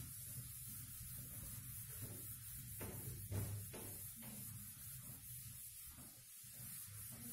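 Faint marker strokes and taps on a whiteboard, with a few short sharp clicks about three to four seconds in, over a low steady hum.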